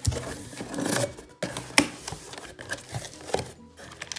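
A cardboard box being opened: a knife cutting through the packing tape, the cardboard flaps scraping open, and plastic cosmetic sachets crinkling as a hand sorts through them. There are sharp snaps near the start, at about one second and just before two seconds.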